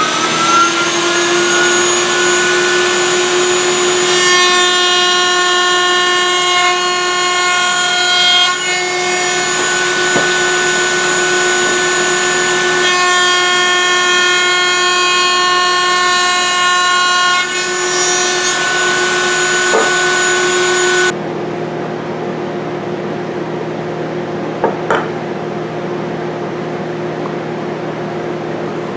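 Woodworking router starting up with a rising whine that settles into a steady high-pitched whine, then cutting a sliding dovetail in hardwood in two passes of about four seconds each, which add a harsher edge. About 21 seconds in the router sound stops abruptly, leaving a quieter steady hum with a couple of clicks.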